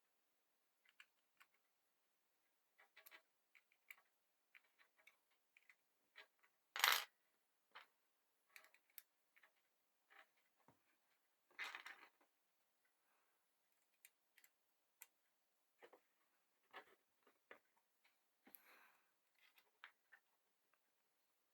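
Scattered light clicks and taps of hand-saw parts and hardware being handled during reassembly. There is one sharp louder knock about seven seconds in and a short clatter around twelve seconds.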